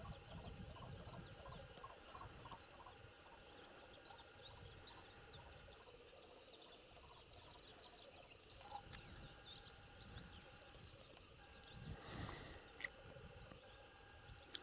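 Faint birdsong from several distant birds: many small chirps and trills over steady lower calling. There is a brief louder noise about twelve seconds in.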